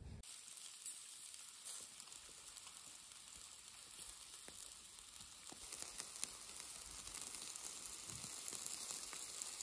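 Pork ribs sizzling in a wire grill basket over glowing charcoal: a steady hiss with many small crackles, growing a little louder after the middle, with one sharper pop about six seconds in.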